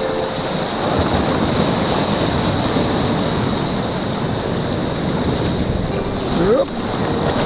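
Wind buffeting the microphone over choppy sea, with waves sloshing around a sea kayak and breaking on rocks alongside. A short rising tone cuts through about six and a half seconds in.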